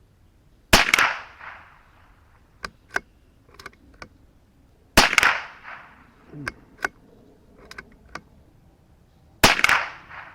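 .22 LR rifle fired three times, about four and a half seconds apart, each shot with a short echo. Small clicks are heard between the shots.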